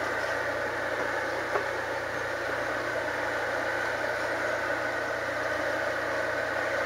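Steady mechanical hum with an even hiss over it, like distant machinery running, and one short click about a second and a half in.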